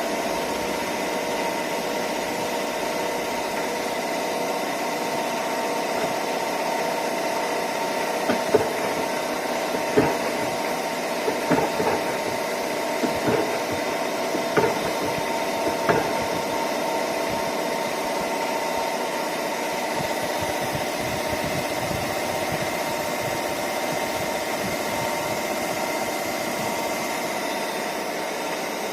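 Murata MW100 twin-spindle CNC lathe running with a steady machine whine of several held tones. A cluster of sharp clunks and knocks comes about a third of the way in.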